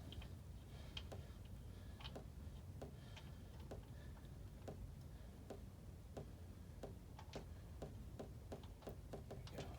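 Faint, regular ticking, about two ticks a second and a little quicker near the end, over a low steady hum.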